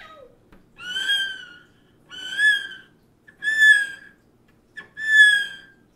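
Cello imitating a cat's meow: four short, high notes, each bending up slightly and falling back, with a brief downward slide just before the first.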